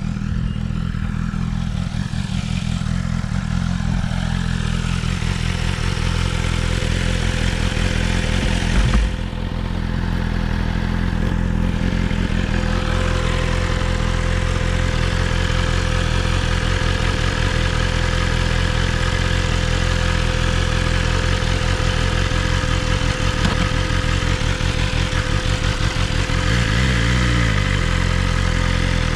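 BMW S1000RR's inline-four engine running under a rider at low road speed, with a steady whirring buzz sitting above the engine note for most of the ride, the noise the owner cannot identify and hears at around 25 mph. A brief louder thump about nine seconds in.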